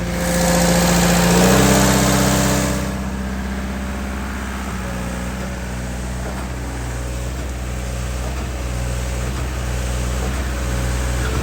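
Olin 545 concrete pump's truck engine running steadily while pumping, its note shifting about a second and a half in. A loud hiss overlays the first three seconds.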